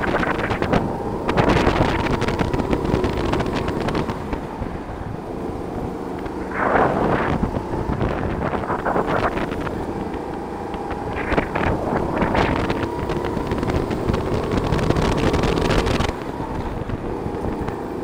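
Go-kart driving at speed, its motor note slowly rising in pitch and dropping back about sixteen seconds in. Gusts of wind buffet the onboard microphone several times.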